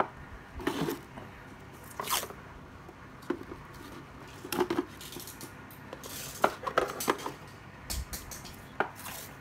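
Strips of paper masking tape being torn off a roll and pressed onto plastic battery-charger cases, heard as a string of short, separate rips, rubs and knocks as the chargers are handled.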